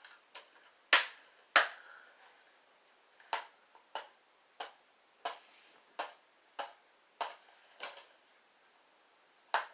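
About a dozen sharp plastic clicks and taps, roughly every half second with a short pause partway through, from fingers working at a DVD case and its seal sticker.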